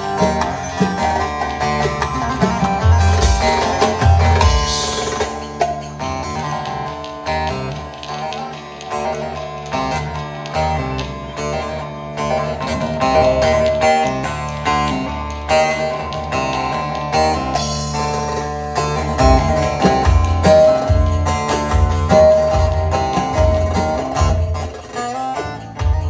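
Live Turkish folk dance music: an amplified bağlama (long-necked saz) playing a lively plucked melody through the hall's loudspeakers, with a heavy low beat underneath that is strongest about three seconds in and again in the last third.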